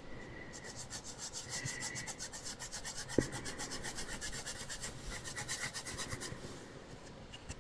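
Foam finger dauber rubbing and dabbing ink through a plastic stencil onto paper: a quiet, fast run of soft scrubbing strokes, several a second, that stops a little after six seconds in.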